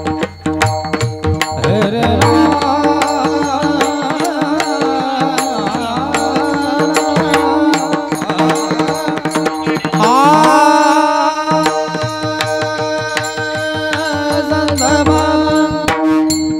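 Indian devotional music: a drawn-out, sliding sung melody over a held drone, with tabla beating a steady rhythm.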